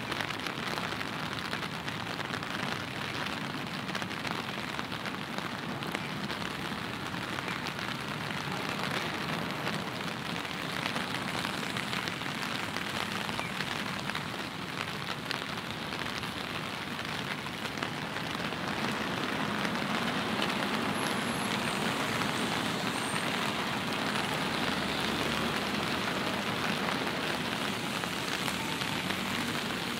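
Steady rain falling, a dense even patter. From about two-thirds of the way through, the sound grows a little louder and a low rumble joins it.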